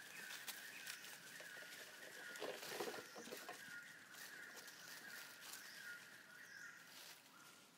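Faint forest ambience: a steady high-pitched drone with scattered small clicks and a brief rustle about three seconds in.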